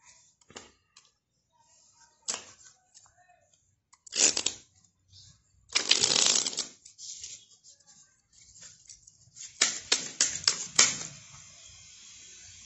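A deck of playing cards being handled and shuffled by hand: scattered single card clicks, a dense rustling shuffle of about a second a little before the six-second mark, and a quick run of sharp card snaps and taps shortly before the end.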